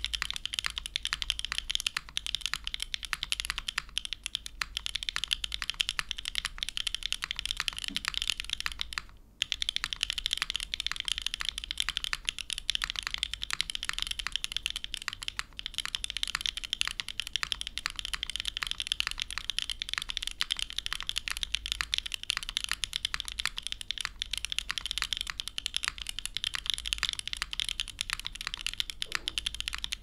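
Fast, continuous typing on an Optica prototype 60% custom mechanical keyboard: Gateron Smoothie linear switches, lubed, in an aluminium plate on a leaf-spring mount, with GMK keycaps. The typing stops for a moment about nine seconds in, then carries on.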